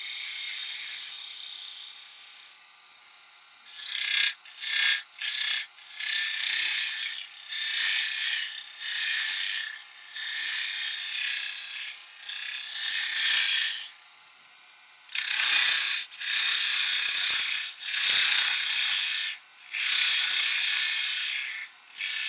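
A turning tool cutting wood spinning on a lathe, roughing out the general shape in a series of passes, each a second or so of scraping cut with short breaks between, over the lathe's faint steady running.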